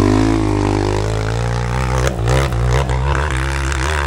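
Dirt bike engine running close by, its revs rising and falling unevenly, with a few short clattering knocks about two seconds in.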